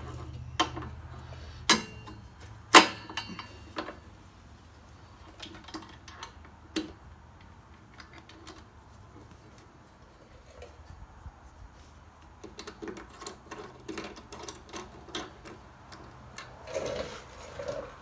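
Metal clicks and taps of a brake pad being pushed up and seated in a Harley-Davidson front brake caliper, the loudest and sharpest clicks in the first few seconds and softer, sparser ticks later.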